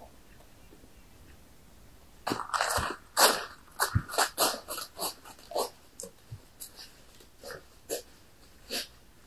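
Footsteps crunching through dry fallen leaves, starting about two seconds in at an uneven walking pace and growing fainter toward the end.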